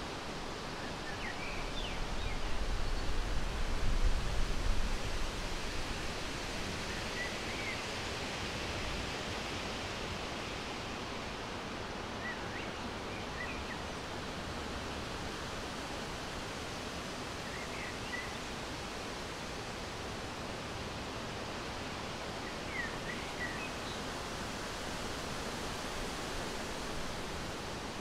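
Outdoor ambience: a steady hiss with a low rumble of wind on the microphone swelling a couple of seconds in and easing off, and faint, short bird chirps every few seconds.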